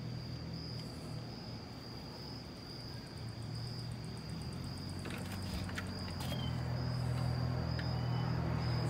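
Crickets chirping steadily in a high, pulsing drone over a low steady hum, which grows louder about two-thirds of the way in. A few light clicks come about five to six seconds in.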